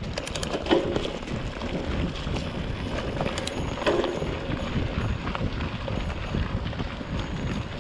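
Bicycle tyres rumbling and crunching over a loose gravel track on a descent, with the bike rattling and wind buffeting the microphone. Sharp knocks from bumps stand out, loudest about a second in and again around four seconds in.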